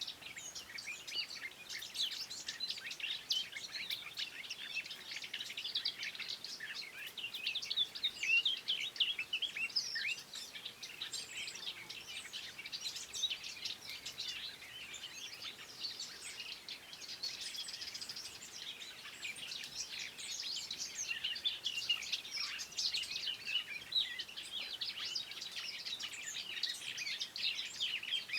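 Several wild songbirds singing at once, with dense, overlapping rapid chirps and trills that never pause.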